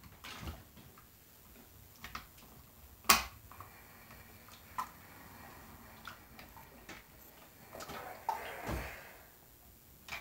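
Household iron handled on a padded ironing board while pressing fusible interfacing: scattered knocks and clicks as the iron is set down, lifted and stood on its heel, the sharpest about three seconds in, with soft fabric rustling near the end.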